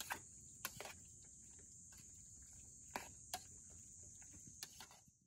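Faint, steady high-pitched insect chirring, with about seven scattered sharp clicks or knocks, which are the loudest sounds.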